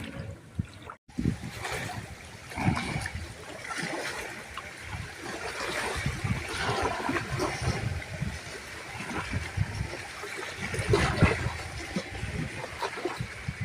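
River waves lapping and splashing against the bank, with gusty wind buffeting the microphone.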